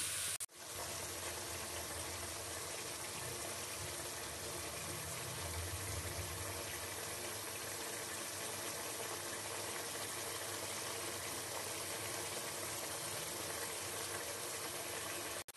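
Chicken pieces and masala sizzling and bubbling in their own juices in a pan as the chicken is fried down: a steady hiss, cutting out briefly about half a second in.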